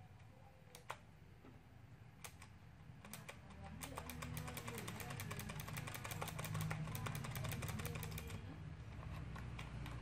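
Keys of a Fühlen mechanical keyboard clicking under the fingers as its newly fitted double-shot keycaps are tried out. A few single clicks come first, then a rapid run of key presses from about three seconds in that stops shortly before the end.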